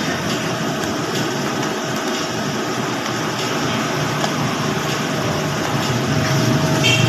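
Steady mechanical background noise with a constant hum, unchanging throughout.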